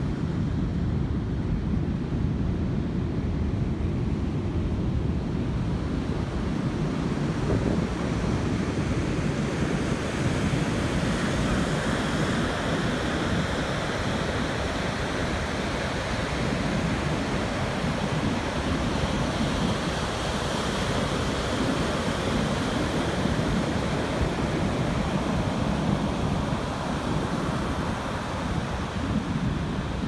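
Ocean surf breaking on the shore, a continuous rush of waves, with wind buffeting the microphone. The hiss of the surf grows fuller about a third of the way in.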